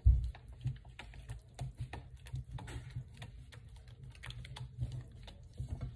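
Utensil clicking and scraping against a stainless steel mixing bowl while lotion is stirred into melted waxes, in quick irregular taps with a louder knock at the very start.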